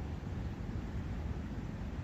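Steady forest ambience of wind and a nearby brook: an even, unbroken rushing noise with a deep rumble underneath.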